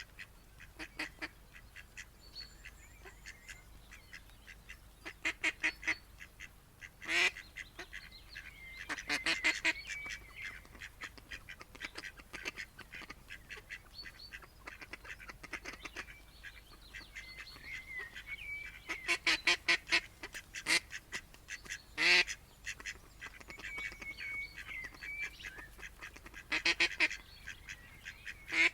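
Waterfowl calling: about half a dozen bursts of rapid, repeated honking or quacking calls, with faint thin whistled bird notes between them.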